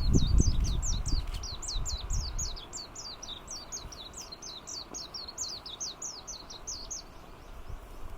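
Japanese white-eye singing: a long, fast run of high, sharp, down-slurred notes, about four a second, stopping about seven seconds in. A low rumble sits under the first couple of seconds.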